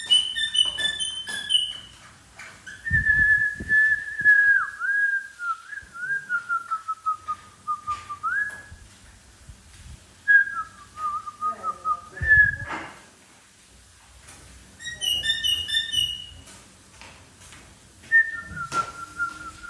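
Pet parrot whistling: runs of short chirps and long wavering whistles that slide slowly downward, with a few low thumps in between.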